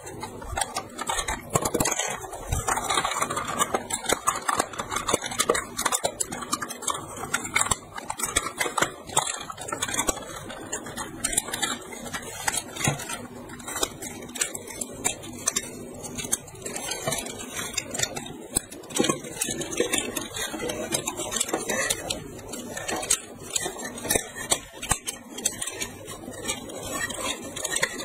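Hard plastic toy parts clicking, snapping and scraping as a transforming toy vehicle is folded into a robot by hand, with irregular clicks and rattles.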